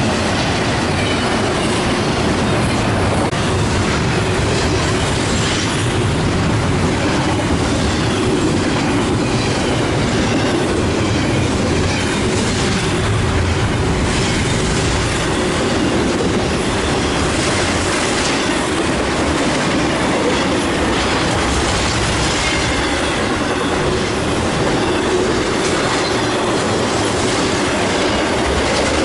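A train rolling past with its cars' wheels clicking over rail joints, and faint wheel squeal throughout.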